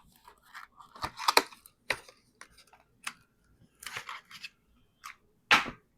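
Hands handling a Crucial NVMe SSD and small parts: scattered clicks and taps with light rustling, and a louder scrape about five and a half seconds in.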